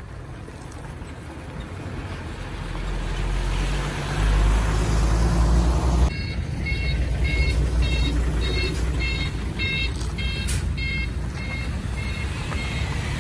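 A diesel dump truck's engine rumble builds to a loud pass and drops off suddenly. It is followed by a vehicle's reversing alarm beeping steadily about twice a second over road traffic.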